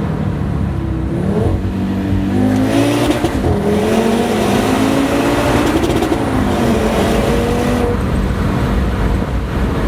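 Audi RS3's turbocharged five-cylinder engine, APR Stage 2 tuned, its pitch climbing over a couple of seconds, holding, then falling away again.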